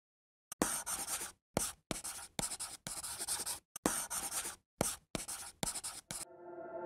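Handwriting on paper: a run of short, scratchy pen strokes with brief pauses between them, following the lettering as it is written. Soft music begins to fade in near the end.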